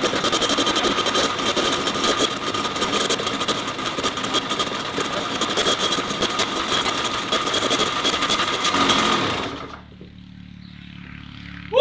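Freshly top-end-rebuilt Kawasaki KX100 two-stroke engine running at idle, a rapid, even crackle of firing strokes, then stopping abruptly near the end.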